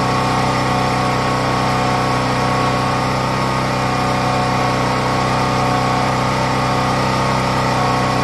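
Champion portable generator's small single-cylinder engine running at a steady governed speed under the analyzer test, an even, unchanging engine drone with a constant hum.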